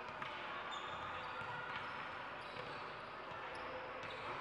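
A basketball bouncing on an indoor court, several sharp knocks, over a steady background hubbub of voices in the hall with a few brief high squeaks.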